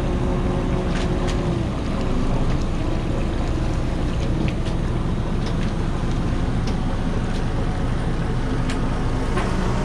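Fishing boat's engine and deck machinery running steadily, a dense low hum in which one tone drops lower a little under two seconds in, with a few sharp clicks and knocks from the gear as the longline comes aboard.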